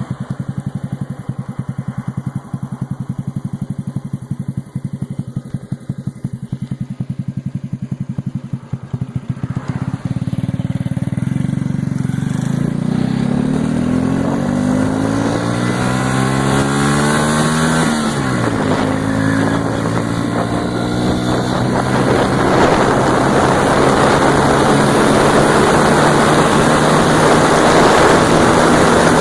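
Honda Dream C100 underbone motorcycle's single-cylinder four-stroke engine through a Roncar aluminium aftermarket exhaust. It idles with a distinct, evenly spaced popping beat for about the first third, then pulls away from a standstill and revs up with rising pitch. The pitch drops sharply at a gear change a little past halfway and climbs again as wind rush builds with speed.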